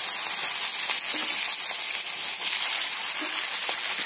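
Spice-coated ivy gourd slices deep-frying in hot oil in a wok: a steady, loud sizzle with a few faint crackles.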